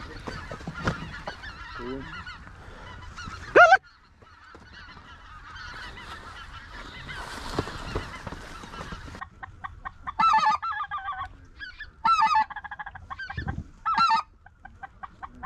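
White-fronted goose (specklebelly) calling: one loud rising call a little under four seconds in, then several clusters of short, loud, yodelling notes in the last six seconds. Rustling and light knocks in the first few seconds.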